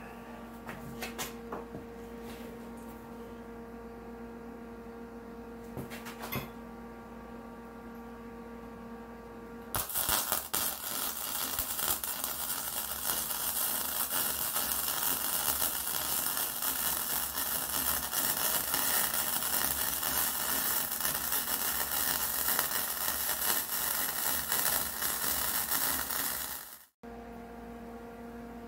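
Steady electrical hum with a few light clicks. About ten seconds in, a flux-core welder's arc strikes and crackles loudly and evenly for about seventeen seconds as a washer is welded onto a seized bearing race. The arc stops abruptly near the end, and the hum goes on.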